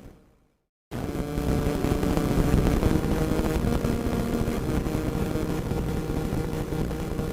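Radio static, a hiss with crackle and a low rumble underneath. It fades out at the start, goes silent for about half a second, then cuts back in abruptly about a second in and runs on steadily.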